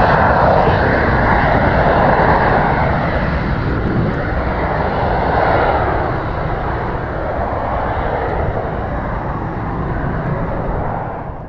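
Cessna Citation C525 business jet's twin Williams FJ44 turbofans at takeoff power as the jet lifts off and climbs away. The jet noise wavers slowly in tone and gradually fades as it recedes.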